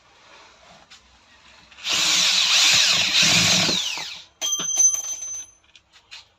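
A power drill-driver runs for about two seconds while driving screws into a rotary hammer's housing, followed by a quick cluster of sharp clicks.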